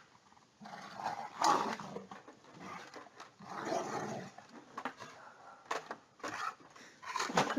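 A dog vocalizing in several short bouts with brief pauses between them.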